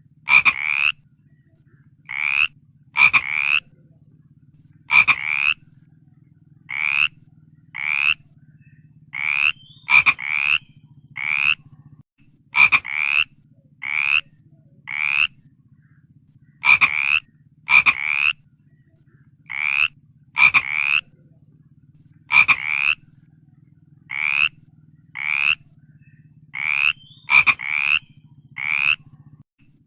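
Frog croaking over and over, short calls about once a second, some louder with a sharp start, over a faint steady low hum.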